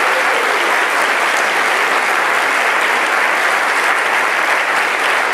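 Congregation applauding steadily.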